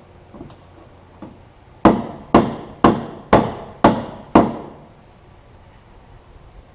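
Six sharp metal blows on the steel rear fender of a 1946 Chevrolet, about two a second, each ringing briefly: panel beating with hammer and dolly to work a dent back to the fender's original curve. A couple of faint taps come before them.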